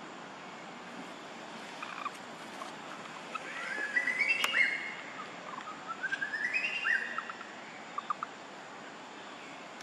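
A bird singing two short phrases of quick notes that climb in pitch, about three seconds in and again around six seconds, over a steady background hiss. A few faint clicks near the end.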